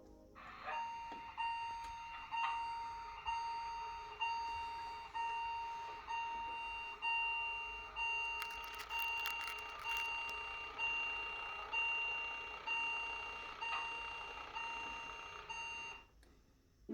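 Level-crossing warning bell on the model railway ringing steadily, about one stroke every three-quarters of a second, each stroke fading before the next; it starts about half a second in and stops about a second before the end. A brief patter of sharp clicks comes about halfway through.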